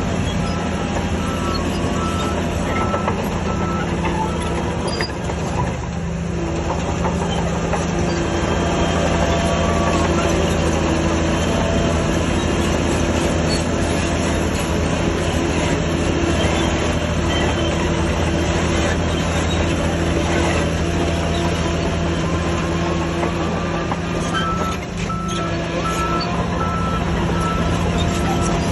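Heavy earthmoving machine's diesel engine running steadily under work. A reversing alarm beeps at an even pace at the start and again near the end.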